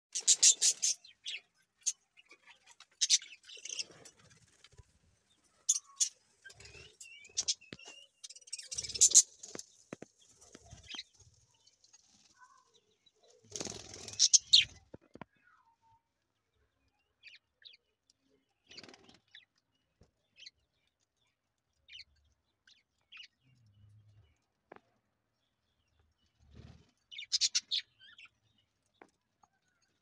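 Budgerigars chirping in short, sharp bursts, scattered and irregular, busier in the first half with a last loud burst near the end.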